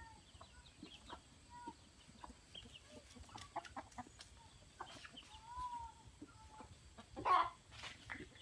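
Chickens clucking quietly as they forage, with scattered short calls and one louder call about seven seconds in.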